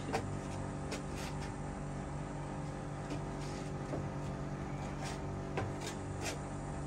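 Scattered light knocks and taps of wedge sandals stepping and turning on a wooden deck, over a steady low mechanical hum.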